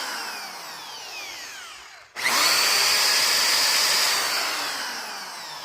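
Corded electric drill powered from an inverter, coasting down with a falling whine after the trigger is let go. About two seconds in it starts again sharply, runs at full speed for a couple of seconds, then winds down once more.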